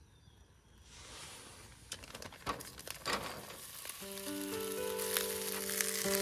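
Crackling and sizzling over a wood fire, with scattered pops, growing louder from about a second in. Soft background music of long held notes comes in about four seconds in.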